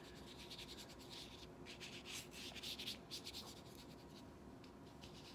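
Paintbrush bristles scrubbing wet paint across thin paper in a run of quick, faint strokes, busiest in the middle.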